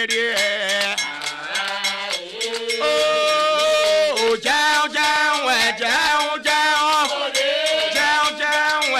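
Background music: a gliding melodic line over regular percussion strokes.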